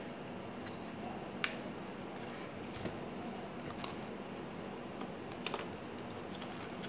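A few sharp clicks and taps of the plastic frame and parts of a Kyocera DK-5140 printer drum unit as it is handled and laid flat: one about a second and a half in, another near four seconds, and a quick double click at about five and a half seconds, over a steady background hum.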